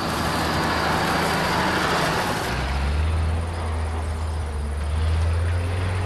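Combine harvester running: a steady rushing machine noise, joined about two and a half seconds in by a deep engine drone that holds on.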